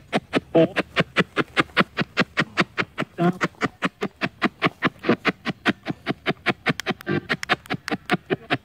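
Spirit box sweeping rapidly through radio stations: a choppy, evenly spaced stream of short radio bursts, about six or seven a second, with brief snatches of broadcast sound caught in a few of them.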